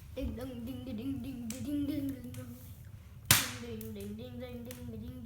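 A child's voice holding two long, slightly wavering sung notes, broken a little over three seconds in by a single sharp smack.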